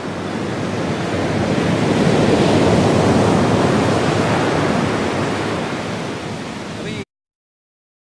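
Ocean surf breaking on the beach: a steady roar that swells to its loudest two to three seconds in and then eases off, and cuts off abruptly about seven seconds in.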